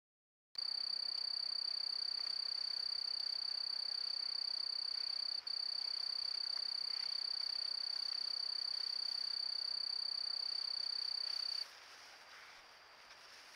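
Steady, high-pitched insect trill at night, holding one even pitch without pause except for a split-second break about five seconds in, and stopping shortly before the end to leave faint background hiss.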